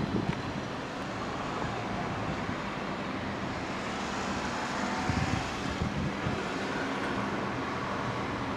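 Honda CB1100's air-cooled inline-four idling steadily through a Yoshimura Cyclone titanium exhaust, heard close to the muffler.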